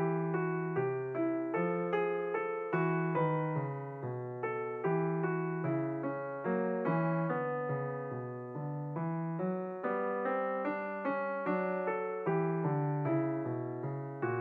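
Background music: a piano melody over chords, notes struck in an even rhythm and dying away.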